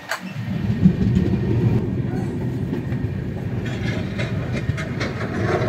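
Moving passenger train's wheels rumbling on the rails, a loud steady low rumble with faint clicks, starting suddenly just after the start.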